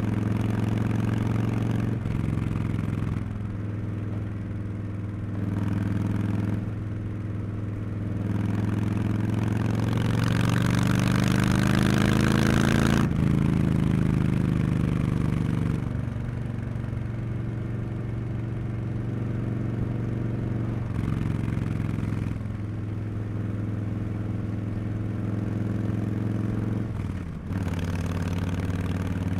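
Harley-Davidson Street Bob 114's Milwaukee-Eight 114 V-twin running through a Cobra Neighbor Hater slip-on exhaust while riding. The engine note climbs under throttle through the middle, drops abruptly as the throttle comes off or a gear changes, then falls away, with several brief dips from shifts and throttle changes.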